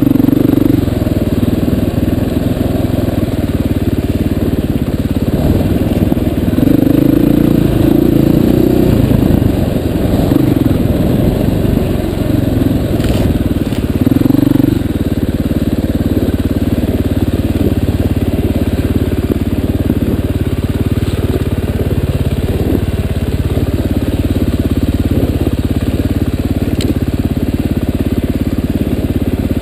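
Enduro dirt bike engine heard close from the bike-mounted camera, being ridden along a rocky trail: the revs rise and fall through the first half, then it runs at a steadier low throttle. A brief sharp knock about halfway through.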